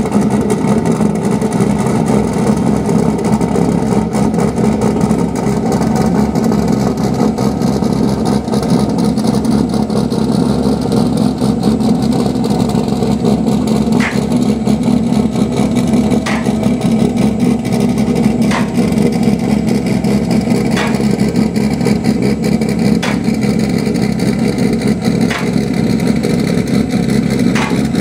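Car engine with headers idling steadily. From about halfway through, a short high chirp comes about every two seconds.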